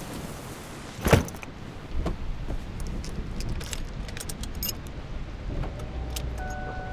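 A car door slams shut about a second in, and the rain's hiss drops away after it. Then come a jangle of keys and small clicks as the driver handles the key at the dash. A steady high tone comes in near the end.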